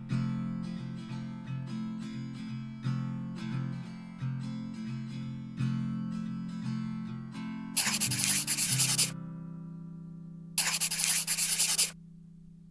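Acoustic guitar background music picking a melody, then a final chord ringing out and fading. Twice near the end a loud, scratchy rushing noise of about a second cuts in over the fading chord.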